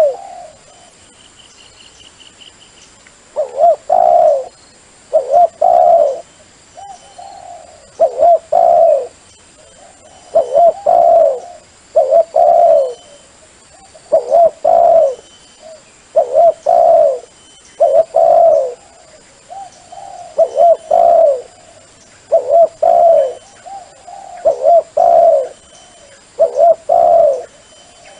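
Dove cooing: a repeated phrase of a few low, rolling coos, roughly every two seconds, starting about three seconds in. It is a dove call played as a decoy to lure wild doves.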